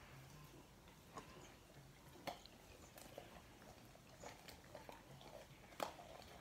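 Pit bull chewing a raw, partly frozen barracuda: faint crunching with a few sharp clicks, the loudest about two seconds in and again near the end.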